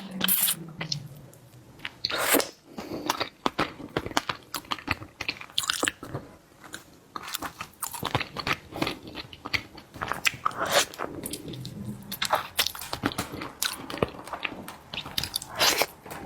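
Close-miked eating of seafood: chewing and crunching, with many irregular sharp clicks and crackles.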